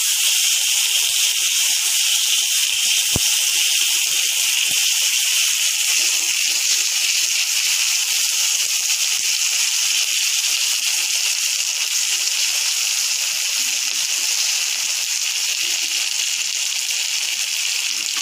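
Mashed tomato frying in hot oil in a metal kadai: a loud, steady sizzle that eases slightly near the end, with a faint knock about three seconds in.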